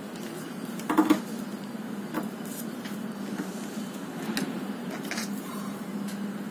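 A steady low hum with a few light clicks and taps from handling the craft plate, the loudest a quick double click about a second in.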